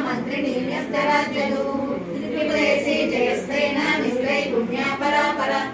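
A group of women singing a song together without instruments, their voices held on long, sliding notes.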